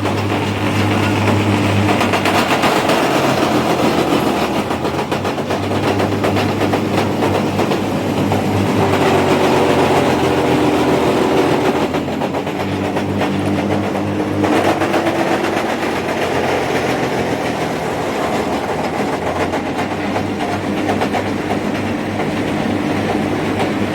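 Wood chipper running under load, a steady mechanical hum with dense rattling and clatter. The hum's pitch shifts a little in the middle.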